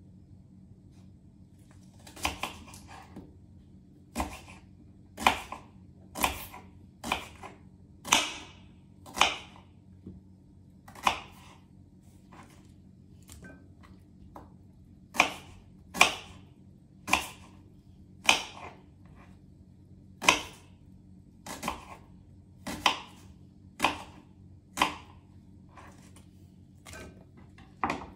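Kitchen knife cutting through a red onion onto a wooden cutting board, roughly one crisp cut a second at an uneven pace.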